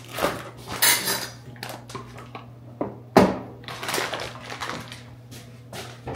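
Kitchen clatter: a series of sharp knocks and clinks as items are handled and set down, with a paper bag handled about a second in and a loud knock a little after three seconds.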